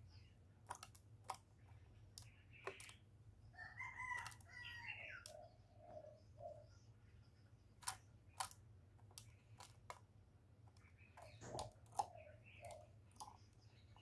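Faint, sparse clicks and taps from a spotted dove moving about its wire cage, with faint bird calls in the background about four to six seconds in and again near the end.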